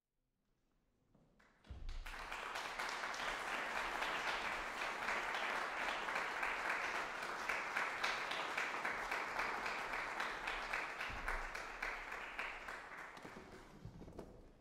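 Audience applauding, welcoming the performers as they walk on. The clapping swells in about two seconds in, holds steady, and dies away near the end.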